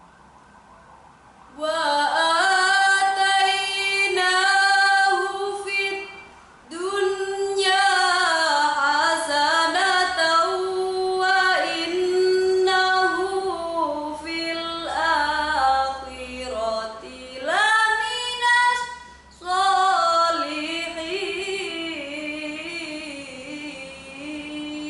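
A girl reciting the Qur'an aloud in the melodic tilawah style: long held, ornamented phrases, broken by short breaths, starting about a second and a half in.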